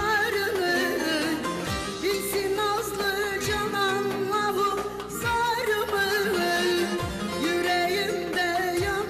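Turkish folk song music: a wavering, ornamented melodic line over a low beat that falls about every two seconds.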